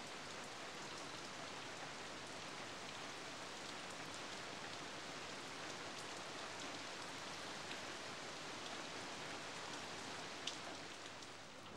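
Steady rain falling on a gravel desert yard, with one sharp tap near the end.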